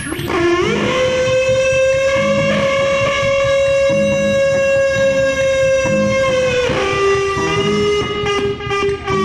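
Circuit-bent electronic keyboard playing one long sustained tone rich in overtones: it slides up into a note about half a second in, holds it, then drops to a lower held note about two-thirds of the way through, over a repeating low pulse.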